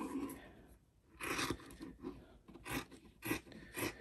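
Scissors snipping through fabric in a series of short, separate cuts, about five in all.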